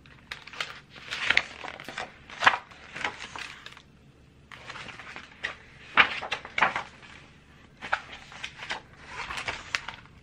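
Paper pages of a hardcover picture book being turned and handled, with irregular rustling and sharp taps and knocks, and a brief lull about four seconds in.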